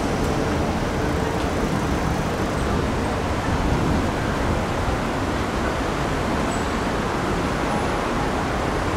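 Steady city street noise, mostly road traffic running past: an even rush of tyres and engines.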